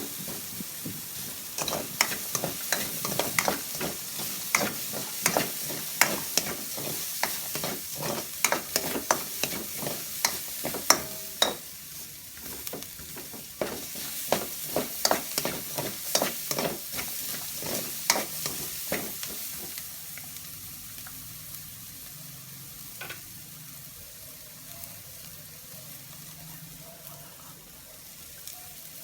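Ginger, onion and garlic sizzling in the pork fat left in the pot, with a spatula scraping and knocking against the pot in quick strokes; after about twenty seconds the stirring stops and only a quieter, steady sizzle remains.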